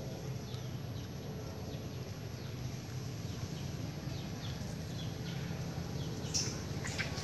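Outdoor ambience: faint short chirps repeat every half second or so over a steady low hiss, and a few sharp crackles come near the end.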